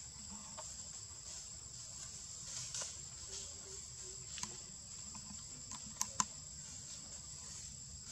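Steady high-pitched drone of insects such as crickets or cicadas, with a few sharp clicks, two close together about six seconds in.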